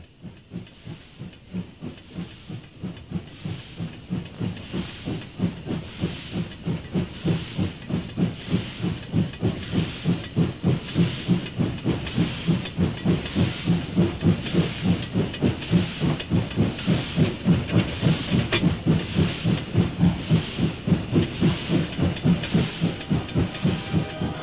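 NSW 50 class steam locomotive No. 5069 under way, its exhaust chuffing in a steady beat of about two and a half beats a second, each beat carrying a hiss of steam. It grows louder over the first half as the engine approaches, then holds.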